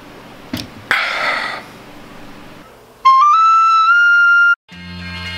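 Penny whistle (tin whistle) played loudly: a few quick notes stepping up in pitch to a held high note of about a second, cut off sharply. Before it, about a second in, there is a short breathy noise.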